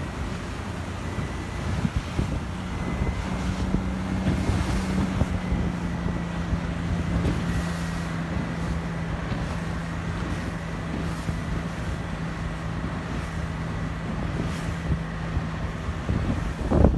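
A motorboat's engine running steadily at speed, with wind buffeting the microphone and water rushing past the hull. The engine's steady hum sets in about two seconds in and fades out near the end, where a short loud knock closes the sound.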